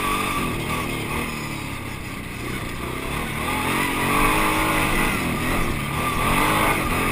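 Dirt bike engine running, heard on board over the front wheel, its revs rising and falling several times as the rider throttles on and off along a rough track.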